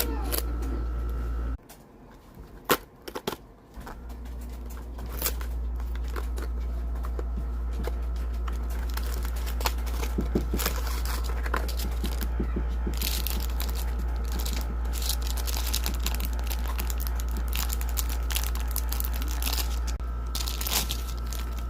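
Candy-toy packaging being torn open and crinkled, with many irregular crackles and clicks over a steady low hum.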